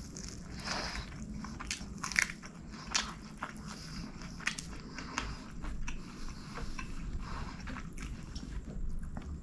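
Close-miked chewing and wet mouth smacks of a man eating rice and chicken curry by hand, with scattered sharp clicks, the loudest about two and three seconds in, over a low steady hum.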